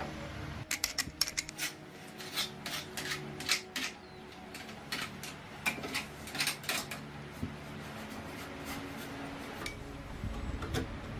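Metal parts and hand tools clinking and scraping against each other in a quick, irregular run, busiest over the first two-thirds and then thinning out, over a faint steady hum.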